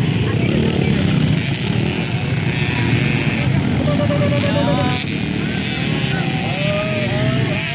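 Several small youth motocross dirt bikes running on a dirt track, their engines revving up and down as the riders ride the course.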